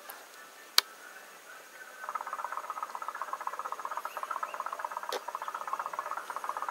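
A small animal's rapid pulsing trill, many pulses a second, starting about two seconds in and carrying on. A sharp click comes just under a second in, louder than anything else, with a fainter one about five seconds in.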